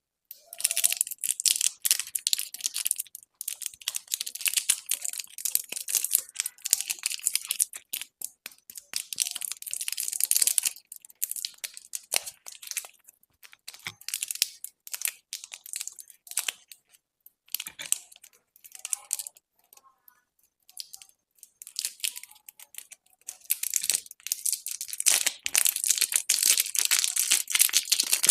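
Candy wrappers and packaging crinkling and tearing as candy is unwrapped. The crackling comes in dense stretches with quieter, sparser ticking between, thickening again near the end.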